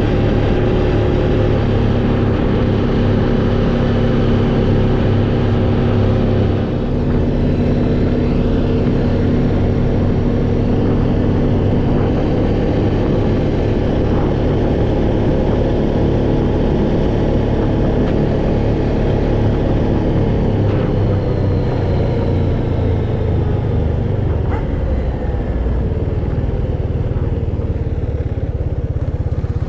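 Vehicle engine and road noise heard from inside the cab while driving: a steady drone whose engine note changes about a quarter of the way in.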